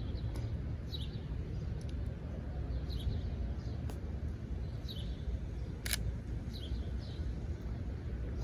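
Outdoor ambience with a steady low rumble and a bird calling in short falling chirps every second or two. About six seconds in comes a single sharp click from the Sony a7III's shutter as a photo is taken.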